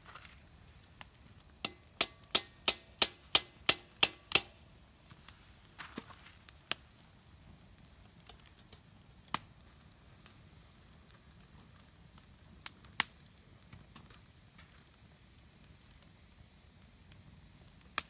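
A quick, even run of about nine sharp metallic taps, roughly three a second, each with a brief ringing tone, as metal knocks on metal at the campfire's iron cooking rack. Later come a few scattered single pops from the burning wood.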